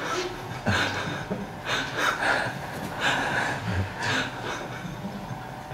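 A person's breath in short, breathy bursts, about one a second.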